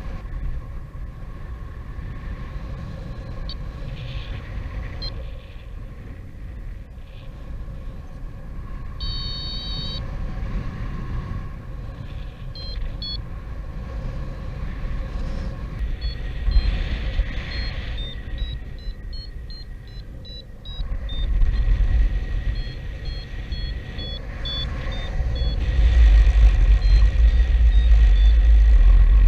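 Strong gusting wind buffeting the microphone: a deep, rumbling roar that swells in gusts, loudest near the end. Short high-pitched chirps or beeps sound now and then over it.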